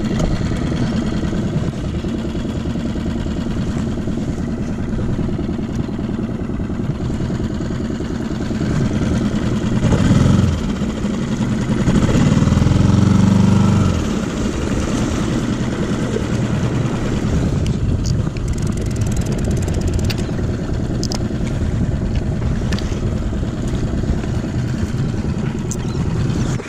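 Skiff's outboard motor running steadily at low speed, getting louder for a few seconds about halfway through.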